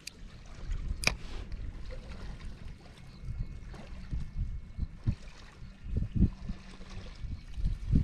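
Water lapping against a kayak hull with low wind rumble on the microphone, and one sharp click about a second in.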